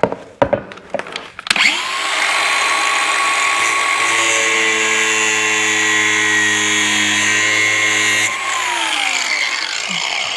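Angle grinder spinning up about a second and a half in and running steadily as it trims a quarter inch off a plastic hood mounting tab, then winding down over about a second after it is switched off near the end.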